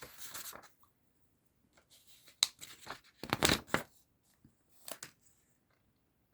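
Paper rustling in a few short bursts, the loudest about three and a half seconds in.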